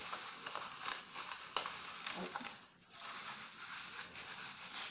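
Close handling noise from hands working with packaging and a container: continuous rustling and crinkling with a few sharp clicks, as the clay mask is got ready.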